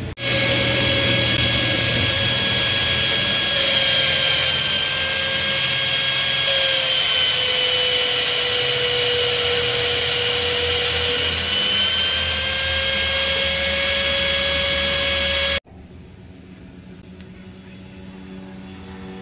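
Bench drill press running and drilling a hole through a metal strip: a loud, steady whine that dips a little in pitch for a few seconds midway, then cuts off abruptly near the end.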